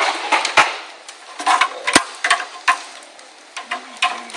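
Screws and small metal computer parts clinking and clicking as they are rummaged through and handled, with a sharp knock about two seconds in.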